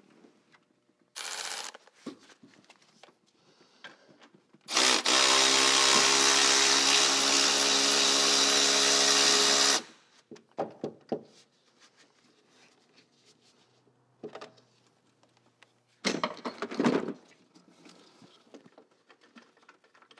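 Handheld cordless power tool spinning off the nut that holds the positive battery cable on a starter motor. It runs steadily for about five seconds, with shorter bursts about a second in and again near the end, and clicks of the socket and nut between them.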